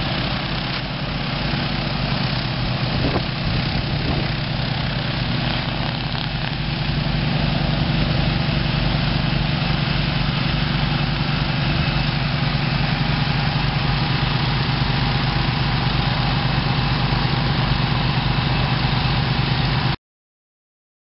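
Petrol engines of a skid-mounted pressure-cleaning and vacuum-recovery unit running steadily, a low engine drone under a broad hiss. The sound cuts off suddenly near the end.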